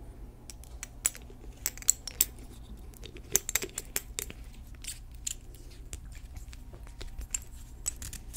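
Fingertips working through and parting hair, making crisp crackling and scratching clicks in an uneven scatter, busiest between about one and five seconds in.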